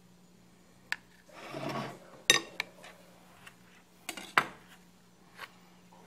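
A metal spoon scraping and clinking against a glass serving plate: a short scrape about a second and a half in, then a few sharp clinks and light taps as the spoon is handled and set down on the plate.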